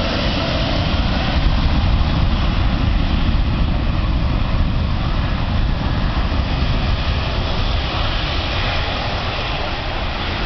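Airbus A380's four jet engines at takeoff thrust as it begins its takeoff roll: a loud, steady rumbling jet noise that swells a little a second or two in and eases slightly near the end.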